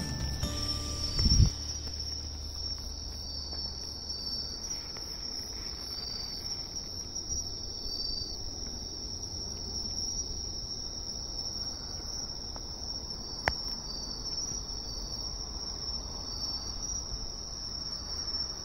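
Chorus of singing insects: a steady, high-pitched ringing trill, with fainter short chirps repeating over it every second or two. One sharp click about two-thirds of the way through.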